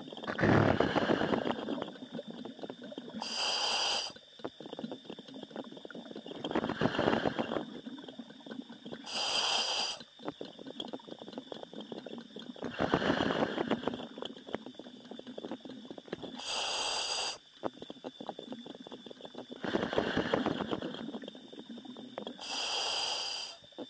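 A commercial diver breathing through a diving helmet's demand valve, heard over the diver's intercom. There are about four slow, regular breaths, each a rough rush of air followed by a short, higher hiss.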